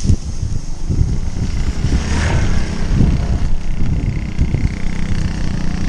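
Wind buffeting the microphone and road rumble from a road bike ridden fast on a wet road. A small motorcycle's engine hums steadily from about four seconds in.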